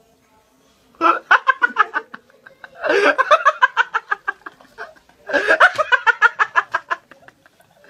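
A young man laughing hard in three fits of rapid ha-ha pulses, each fit a second or two long with short breaks between.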